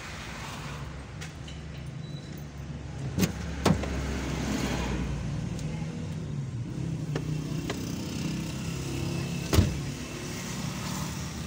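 Car engine running and road noise, heard from inside the car's cabin as it drives slowly in traffic. Three sharp knocks come through, two close together a few seconds in and a louder one near the end.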